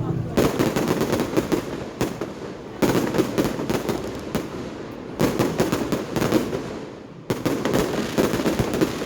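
Fireworks going off: four volleys of dense crackling, each a second or two long, starting about every two and a half seconds.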